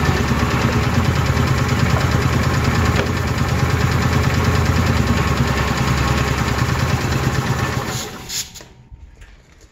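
Small gasoline engine of an Ingersoll Rand portable air compressor running steadily on a first start, then stopping about eight seconds in.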